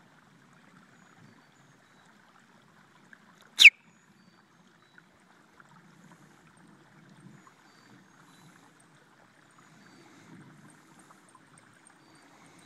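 Water trickling and gurgling faintly and steadily into a pond. About three and a half seconds in comes one short, sharp, high chirp that falls steeply in pitch.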